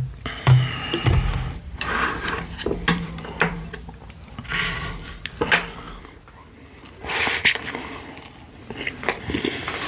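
Close-miked eating of pork-bone soup (gamjatang): wet chewing and slurping in uneven bursts, with sharp short clicks.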